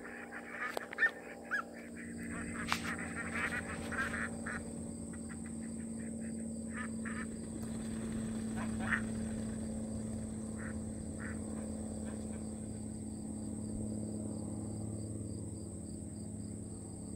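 A flock of ducks quacking, densely for the first four seconds, then only a few scattered quacks as the flock moves off. A steady low hum and a thin high tone run underneath throughout.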